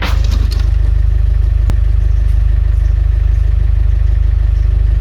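Car engine running with a steady low rumble, and a single sharp click about two seconds in.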